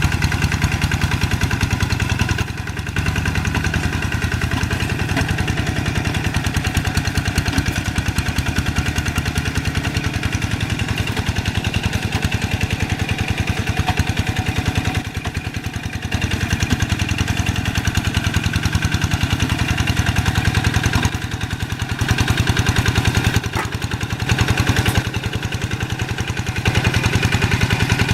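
Two-wheel hand tractor's single-cylinder diesel engine running steadily with a fast, even beat while plowing deep paddy mud. The sound drops briefly a few times, about two seconds in, midway and past two-thirds of the way through.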